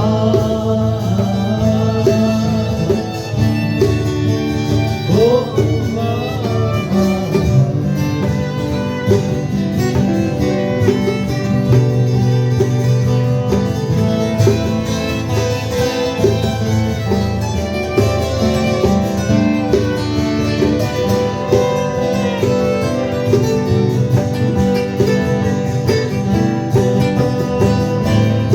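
Live band playing an instrumental break in a country style, guitar to the fore.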